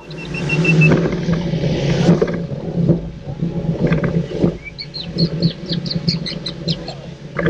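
Small boat's motor running at speed, a steady hum under wind and water rushing past. About halfway through, a parrot gives a quick run of short high chirps.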